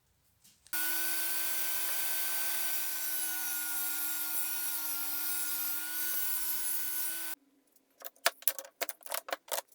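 Power saw cutting particle board, running at a steady pitch through a cut of about six seconds and stopping abruptly. After it, a few sharp knocks and clicks from handling the cut pieces.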